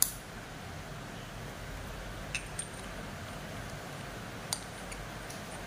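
A sharp click, then a few light metal clinks about two and a half and four and a half seconds in, over steady background hiss: the parts of a paintball air regulator being handled as it is set up for a pressure test.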